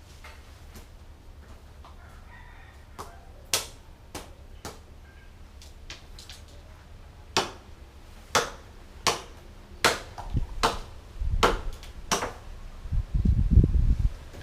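Irregular sharp knocks and cracks from tree-cutting work with hand tools and branches. They are sparse at first and come faster after about seven seconds. Near the end there is a heavy low rumble.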